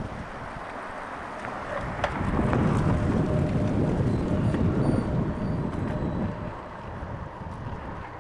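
Wind buffeting an action camera's microphone while cycling in gusty wind. It swells from about two seconds in and eases near the end.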